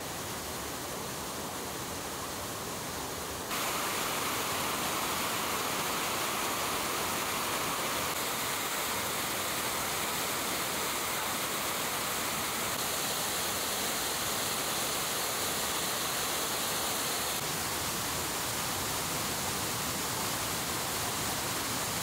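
Waterfall rushing, the water high after the previous day's rain: a steady, even rush of falling water that steps suddenly louder about three and a half seconds in.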